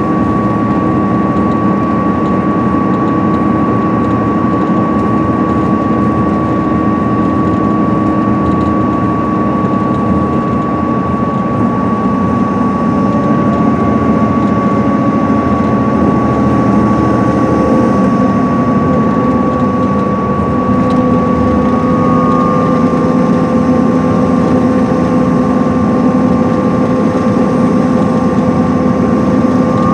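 Inside a 2010 MCI D4500CL coach cruising at highway speed: its Cummins ISM diesel engine running steadily under road and tyre noise, with a steady high whine throughout. The engine note shifts a little lower about a third of the way in.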